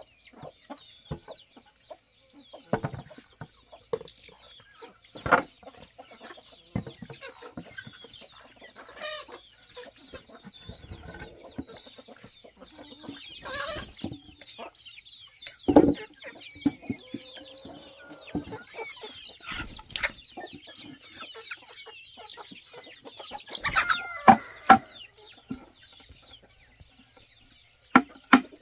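Chickens clucking, with scattered sharp knocks and thuds from handling or work going on nearby.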